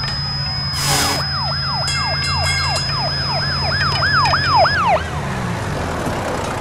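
Emergency siren wailing in quick repeated falling sweeps, about two a second and speeding up, over a steady low drone, stopping about five seconds in. A sudden whoosh comes about a second in, and a thin high steady tone runs alongside the siren.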